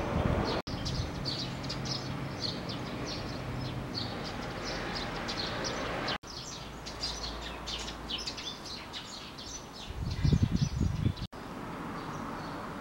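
Small birds chirping over and over in short, high notes, broken by brief dropouts three times. A few low thumps come about ten seconds in.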